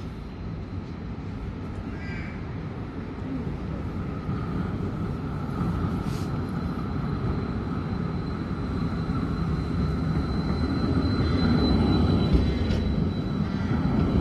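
A tram approaching, its low rumble growing steadily louder, with a thin high-pitched whine from its drive held steady over it. A crow caws briefly about two seconds in.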